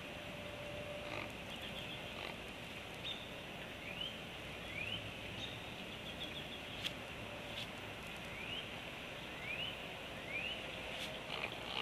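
Juvenile bird making short, rising squeaky calls, the 'pig sounds', about six times, over runs of fast ticking.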